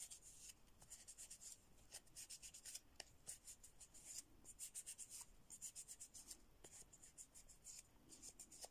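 Lint-free nail wipe rubbed briskly over fingernails to degrease them before a new gel coat: faint, quick scratchy strokes, several a second, in short runs with brief pauses.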